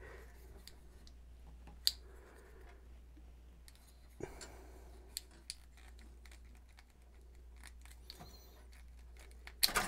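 Faint scattered clicks and light scraping as a stuck 6U5 magic-eye tuning tube is twisted and worked free of its socket, with a cluster of louder clicks near the end, over a low steady hum.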